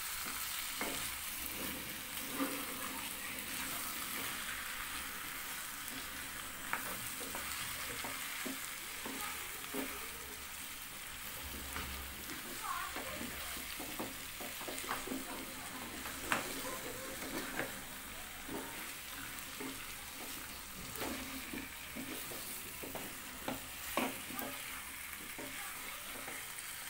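Raw chicken pieces and spice masala sizzling in a nonstick pan, with a wooden spatula scraping and knocking against the pan as the mix is stirred, in scattered short clicks over the steady frying hiss.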